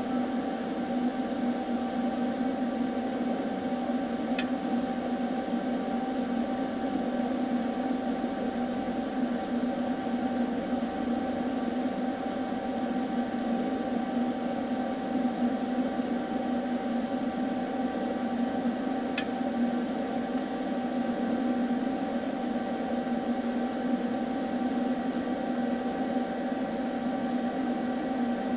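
TIG welding arc on 18-gauge mild steel, a steady unbroken buzz while a T-joint is welded, with two faint ticks along the way.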